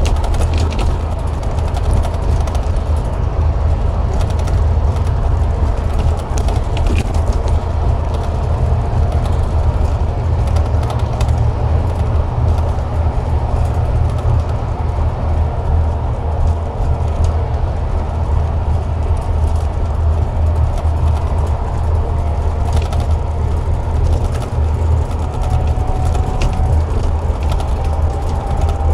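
Scania DC13 diesel engine and driveline of a bus under way: a steady low drone with a faint whine above it that rises slightly near the end.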